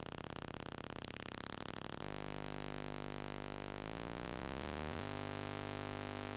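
Electromagnetic interference from a 1984 Apple //c computer and its CRT monitor, picked up by a homemade coil pickup: a rapid pulsing electronic buzz that switches abruptly about two seconds in to a steady hum of many pitches, with tones sliding in pitch around four to five seconds in before settling steady again.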